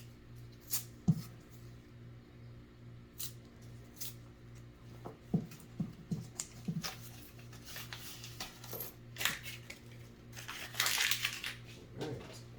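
Pennies clicking and clinking as they are handled and sorted by hand, with a longer rattle of coins shuffling together near the end. A steady low hum runs underneath.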